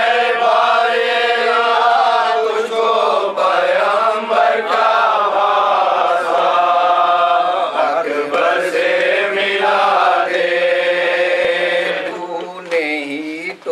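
Male voice chanting an Urdu nauha (Shia lament) in long, drawn-out melodic phrases with slow bends in pitch, unaccompanied; it eases off near the end.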